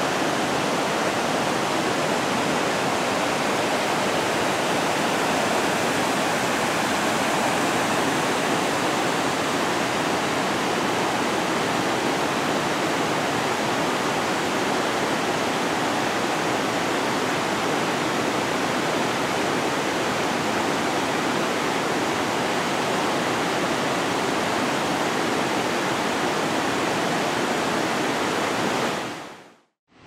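Waterfall and the creek below it: a steady, even rush of falling water that fades out quickly near the end.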